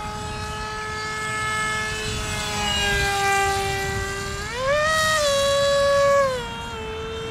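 RC foamboard plane's electric motor and propeller whining in flight. The pitch sags slightly, then climbs sharply as the throttle is pushed up about halfway through, holds for a couple of seconds, and drops back near the end.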